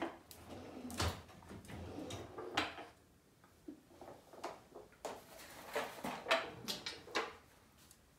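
Kitchen drawer opened and rummaged through: a string of knocks, clicks and clatter from the drawer and the things inside it.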